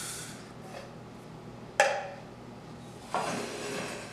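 Kitchenware being handled on a granite countertop: a metal mixing bowl and a glass baking dish knocked and slid. There is a sharp knock with a brief ring about two seconds in, then a scraping clatter a little after three seconds.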